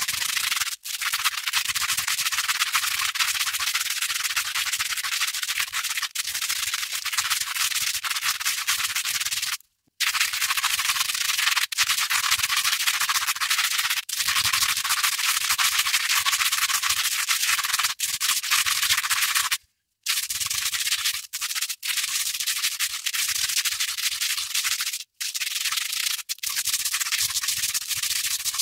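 Velcro hook tape scratched and rubbed against loop tape: a continuous, crunchy, hissing rasp, broken by a few short pauses, about a second, ten seconds and twenty seconds in.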